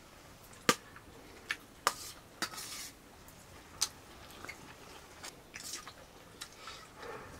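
A metal spoon clinking and scraping against a steel plate of rice and mustard greens, in sharp, irregular taps about once or twice a second, with soft chewing between them.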